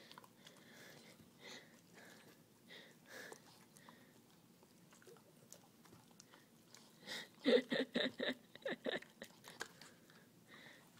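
A dog licking and chewing peanut butter, with faint wet smacks. About seven seconds in comes a louder run of quick smacking licks for a second and a half.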